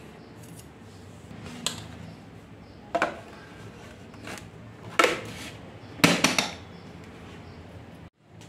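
Steel bowl, table knife and plastic plate clinking and knocking as a set milk pudding is loosened with the knife and the bowl is turned out onto the plate: a few sharp separate knocks, with the loudest cluster about six seconds in.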